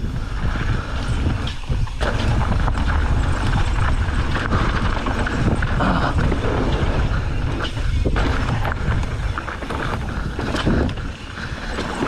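Mountain bike running fast downhill on a dry dirt and rock trail: the tyres crunch over loose dirt and the bike rattles and knocks over bumps, under a constant rumble of wind on the action camera's microphone.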